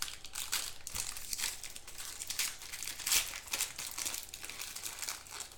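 Trading card pack wrapper (a Prizm White Sparkle pack) being torn open and crinkled by hand, with irregular crackling through the whole stretch.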